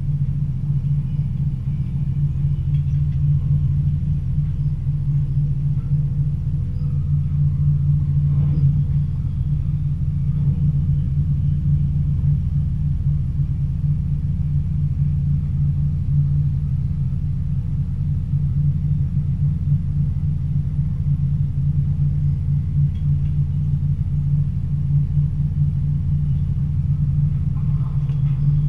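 Stadler GTW diesel-electric train running steadily along the line at speed: a constant low drone of the running gear and power pack, with one brief faint knock about eight seconds in.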